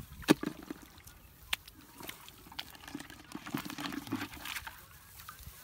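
Shallow muddy water sloshing and splashing as someone wades barefoot through a flooded rice paddy and works in the water by hand. It comes as irregular splashes: a sharp one about a third of a second in is the loudest, another follows about a second later, and there is busier sloshing in the second half.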